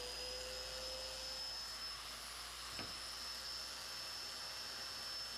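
Festool Domino joiner motor running with a steady high whine while cutting mortises for floating tenons in walnut, with one brief tap about three seconds in.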